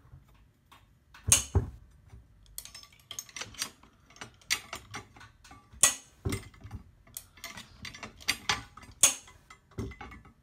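Irregular sharp metallic clicks and clinks from a dead-weight torque wrench calibration rig being handled: the click-type torque wrench, its aluminium lever arm and the steel hanging weight on its shackle. The loudest knocks come about a second and a half in, near six seconds and near nine seconds.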